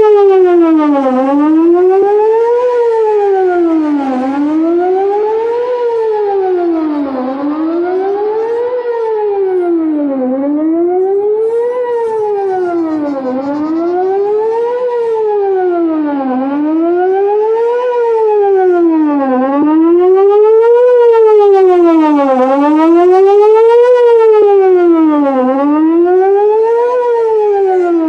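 Electronic outdoor tornado warning siren sounding a wail test signal. Its pitch rises and falls smoothly about once every three seconds, and it slowly swells and fades in loudness.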